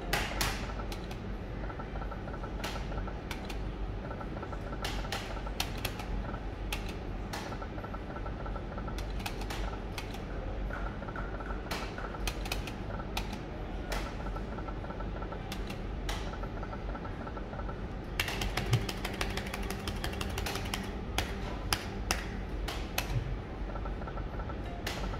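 Shining Crown video slot machine playing spin after spin: clusters of sharp clicks as the reels stop, with a faint beeping tone between them. There is a dense run of rapid clicks about eighteen seconds in, over a steady low hum.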